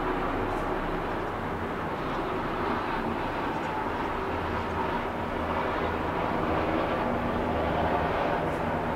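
Steady outdoor rumble of distant engines and traffic, with a few faint steady tones running through it.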